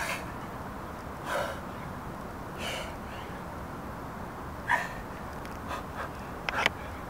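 A man's hard, short breaths out during push-ups: a hissy puff every second or two, with the sharpest ones near the end.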